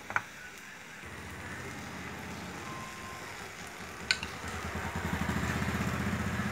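A small engine runs with a low, evenly pulsing drone that starts about a second in and grows louder in the second half. A metal spoon clinks once against a bowl a little after four seconds in.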